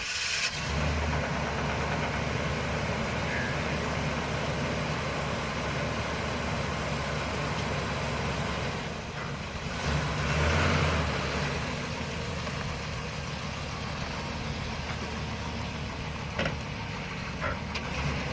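1999 GMC 3500 pickup's 5.7L gasoline V8 idling steadily, growing louder for a moment about ten seconds in. The engine has a rod knock.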